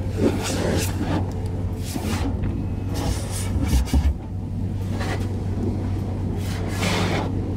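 Automatic car wash heard from inside the car: a steady low machine hum, with repeated rushing swishes as water jets or brushes sweep over the car every second or two.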